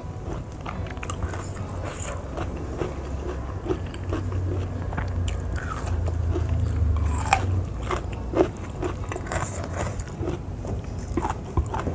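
Close-miked biting and chewing of raw vegetables: crunchy bites and many short, wet mouth clicks, irregular throughout.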